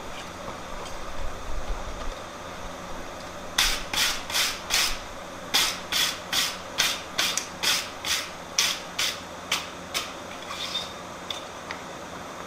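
Rhythmic rasping strokes of a hand tool scraping steel, about two to three strokes a second. A short run of four strokes comes a few seconds in, then after a brief pause a longer run of about eleven.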